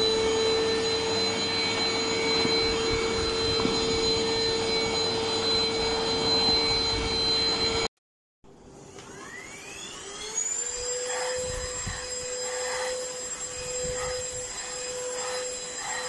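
Enolux LPMY-017 handheld dust mite vacuum cleaner running with a steady high motor whine. About eight seconds in, the sound breaks off briefly, then the motor starts again, its whine rising over about a second and a half before settling steady.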